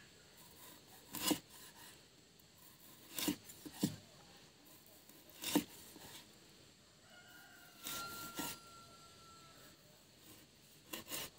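Knife slicing through raw pork on a wooden chopping board: a handful of separate cuts a second or two apart, each a short sharp knock of the blade reaching the board.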